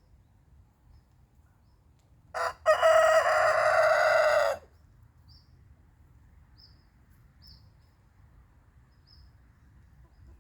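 Rooster crowing once: a short first note, then one long call held for about two seconds. A few faint, short chirps of small birds follow.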